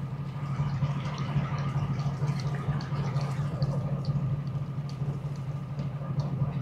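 Fishing boat's engine idling steadily: a low hum with a thin higher tone above it, and light irregular ticks over the top.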